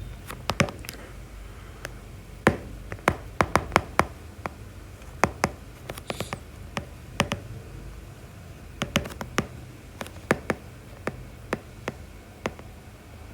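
Irregular sharp taps and clicks of a pen writing on a hard surface, over a faint steady low hum.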